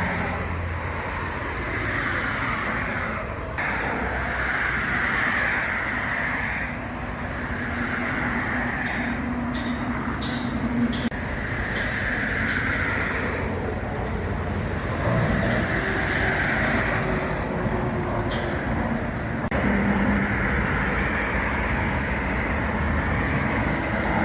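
Road traffic and vehicle engines running, with passing vehicles swelling and fading and a low steady engine hum. A few short high ticks come about ten seconds in.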